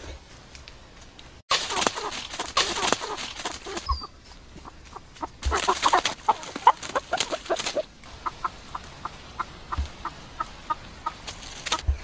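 A run of short clucking animal calls, several a second, over rustling noise that starts abruptly about a second and a half in.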